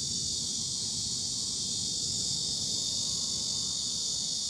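Steady, high-pitched chorus of insects such as crickets or cicadas, over a low steady rumble.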